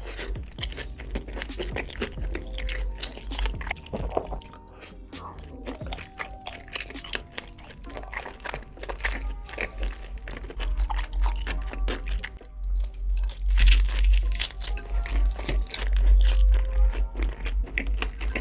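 Person biting and chewing crunchy food with many sharp crunches, over background music with a heavy bass.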